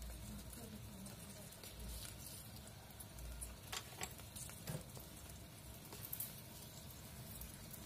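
Spiced sauce liquid faintly bubbling and sizzling in an aluminium wok, with a few light clicks of a spoon against the pan about halfway through.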